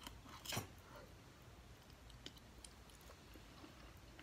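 Someone eating rice noodles: one sharp mouth noise about half a second in as a forkful goes into the mouth, then faint scattered chewing clicks.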